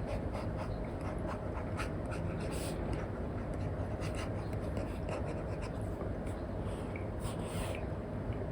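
Apple Pencil tip tapping and scratching on an iPad fitted with a paper-like matte screen film: quick clicks and short sketching strokes over a steady low background noise.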